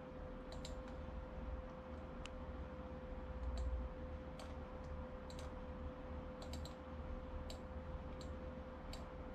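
Computer mouse clicking irregularly, a dozen or so sharp clicks with some in quick pairs, over a faint steady hum.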